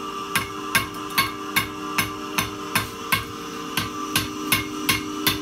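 Hand hammer striking the red-hot end of a steel pipe on an anvil, a steady run of blows about two and a half a second, forging the pipe end closed into a point. A steady hum runs underneath.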